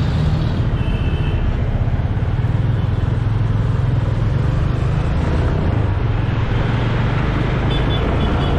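Steady engine rumble and road noise of a moving vehicle while riding, with two brief faint high beeps, about a second in and near the end.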